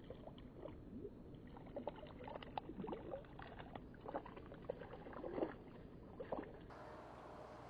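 Faint small plops and splashes at the water's surface as a fish darts near the bank, over a low outdoor hiss.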